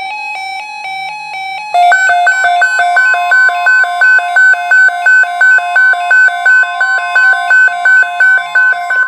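Weather radio receiver's electronic alert alarm going off for an incoming warning. It begins with a softer two-note warble, then from about two seconds in turns to loud, rapid two-tone beeping, about three pulses a second, and cuts off abruptly at the end.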